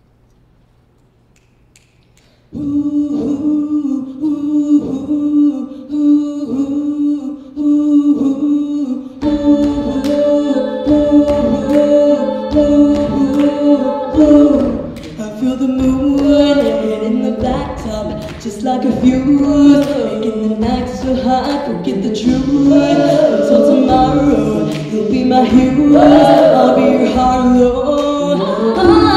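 All-female a cappella group singing into microphones. After a short hush, a rhythmic repeating backing of voices starts a few seconds in. About nine seconds in, the arrangement fills out with more voices and sharp percussive hits on the beat.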